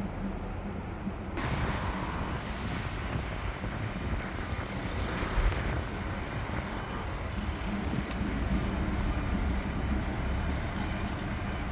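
Steady outdoor city noise of distant road traffic with a low rumble, growing brighter about a second and a half in.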